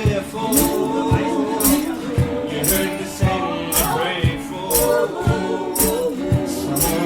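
Vocal trio singing in close harmony over a steady beat, with hand percussion jingling and a low bass thump alternating about every half second.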